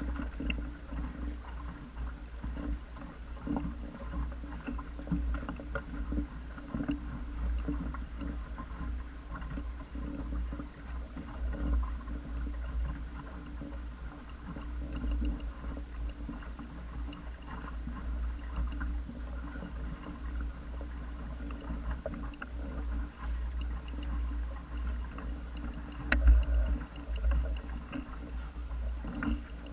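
Wind buffeting the microphone as a small wooden sailing dinghy moves under sail, with water gurgling and lapping along its hull. A stronger gust comes near the end.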